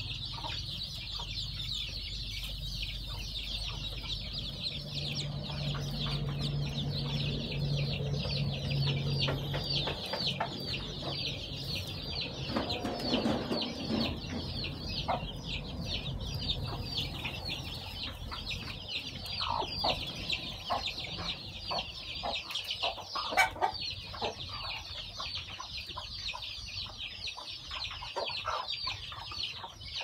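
A brood of newly hatched chicks peeping constantly: a dense chorus of short, high cheeps, each sliding down in pitch. Now and then it is joined by a lower call from the broody hen.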